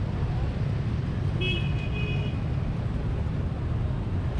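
Steady street-traffic rumble, with a high-pitched vehicle horn beeping for under a second about a second and a half in.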